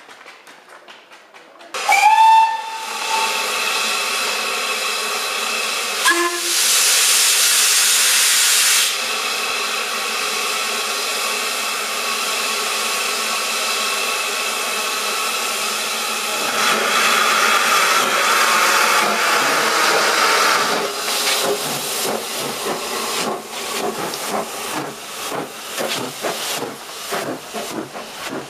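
Steam locomotive whistles blow a short sharp blast about two seconds in, and a second, shorter one a few seconds later, over steady hissing steam from the two SE&CR engines, P class No. 178 and C class No. 592. Twice a louder blast of steam lasts a few seconds. Near the end the exhaust chuffs of the locomotives starting the train away begin.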